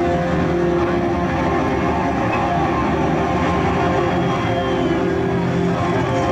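Heavy metal band playing live with electric guitar, bass and drums, heard as a loud, distorted, unbroken wash through an audience camcorder's microphone, with held guitar tones running through it.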